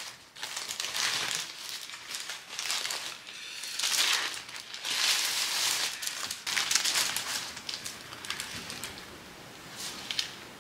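Subway paper sandwich wrapper crinkling and rustling in repeated bursts as a footlong sub is unwrapped. It dies down in the last couple of seconds, with one brief crinkle near the end.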